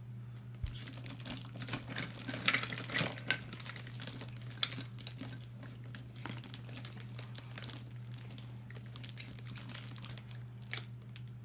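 Crinkling and irregular clicking of small toys and packaging being rummaged through in a box of toys, busiest a few seconds in. A steady low hum sits underneath.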